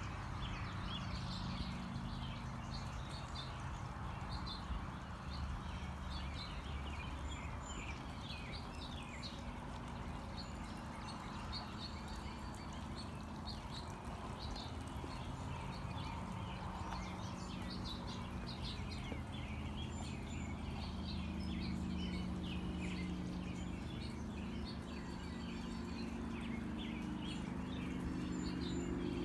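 Battery-powered garden-scale Whitcomb switcher locomotive running slowly, its motor and gears humming steadily as it pulls small metal-wheeled coal cars along the track. Many birds chirp throughout.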